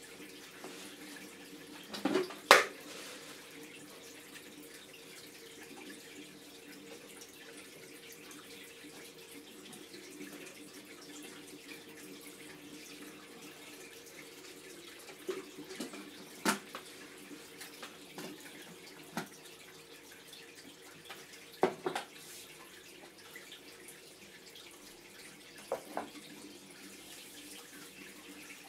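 Reef aquarium's circulating water, a steady trickling wash over a low pump hum, broken by several sharp clicks. The loudest click comes about two and a half seconds in.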